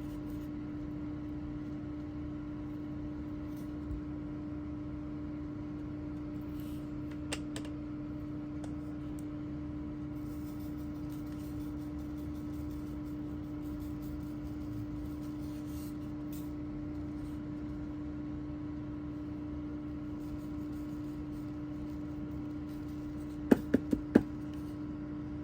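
Room air conditioner running with a steady hum. Near the end comes a quick run of sharp taps.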